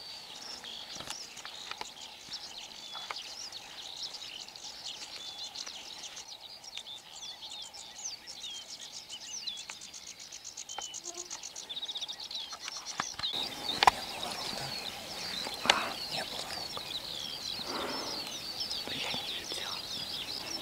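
Many birds singing and chirping at once, an early-morning chorus, over a faint even hiss. Twice in the second half a sharp knock stands out.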